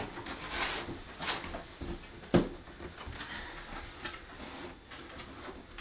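Cardboard being folded and handled: scattered light scrapes and rustles, with one sharp knock about two and a half seconds in.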